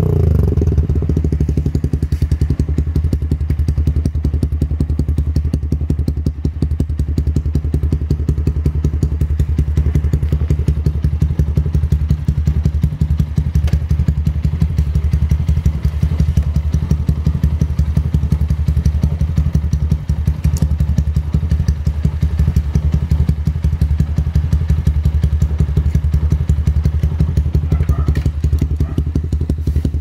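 Yamaha Sniper 150's single-cylinder four-stroke engine idling steadily through an aftermarket racing exhaust.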